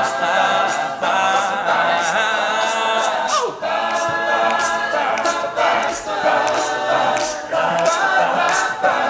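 All-male a cappella group singing in close harmony, with a crisp percussive beat about twice a second under the voices. About three and a half seconds in, one voice slides down in pitch.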